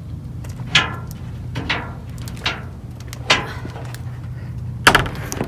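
A series of sharp knocks and thumps, about one a second, with the last two the loudest, as cardboard boxes and objects are handled and moved, over a steady low hum.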